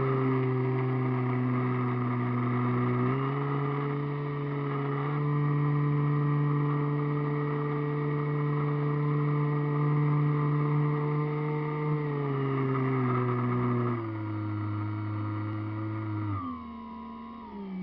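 Radio-controlled airplane's motor and propeller heard from a camera on board the plane, a steady drone. Its pitch steps up about three seconds in, then falls in stages near the end as the throttle is eased back.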